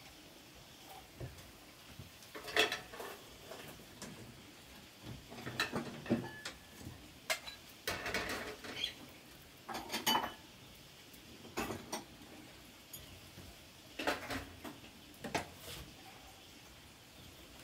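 Cooking utensils knocking and clinking against pots and dishes. The knocks and clinks come at irregular intervals, about one every second or so, and a few ring briefly.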